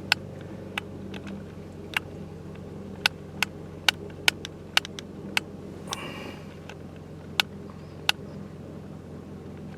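A steady low mechanical hum, with about a dozen sharp clicks at irregular intervals over it.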